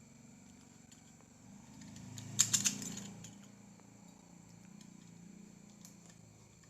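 A quick cluster of three or four light clinks about two and a half seconds in, over a faint steady hum.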